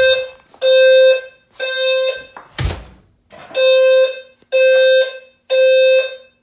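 Low-frequency fire alarm sounder sounding the temporal-3 evacuation pattern: three half-second low tones about a second apart, a pause, then three more. A single loud thump lands in the pause between the two groups.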